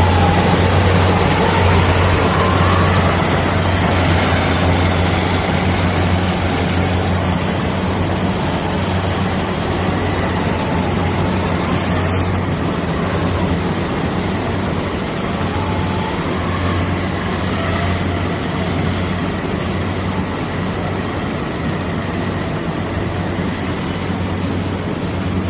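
Kubota DC-70 rice combine harvester running steadily as it cuts and threshes rice: a constant low engine drone with mechanical clatter, loudest for the first few seconds, then a little fainter.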